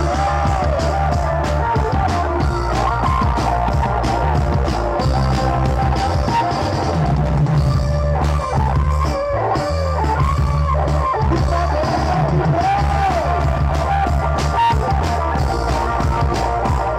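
Kecimol street band playing: marching bass drums and snare drums beating a steady rhythm under a sliding, bending melody carried over stacked loudspeakers.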